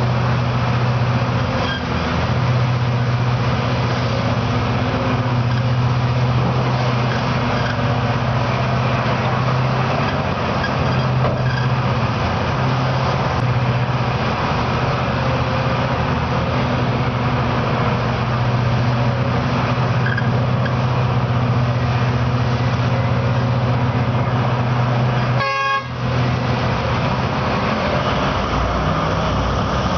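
Heavy diesel engine of mining machinery running steadily with a strong low drone, broken by a short dropout about 26 seconds in.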